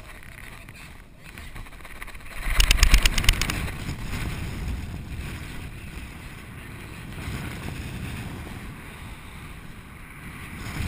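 Wind rushing over the microphone in paraglider flight, with a loud burst of rapid buffeting about two and a half seconds in that settles back to a steady rush.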